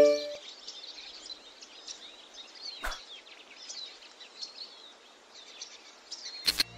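Birds chirping over a steady background hiss, with a single click about three seconds in and a sharp knock just before the end.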